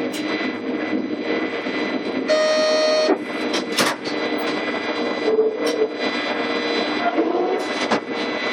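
Class 420 electric multiple unit running slowly, heard from the driver's cab: steady electrical whine from the traction equipment with small pitch glides, over the rumble of wheels on rail. About two seconds in, a short electronic tone sounds for under a second, and a few sharp clanks follow over track joints or points.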